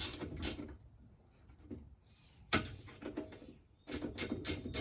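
Metal knocks and clicks of a 1/2-inch speed wrench loosening the bolts on an Alaska chainsaw mill: a few separate knocks, a sharp one about two and a half seconds in, then a quick run of clicks near the end.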